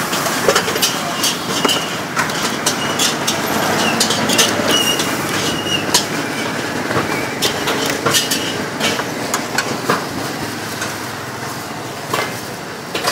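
Steady street traffic noise with frequent sharp metal clinks and knocks, some ringing briefly, as a wire strainer basket is dunked and shaken in a steel pot of boiling noodle broth.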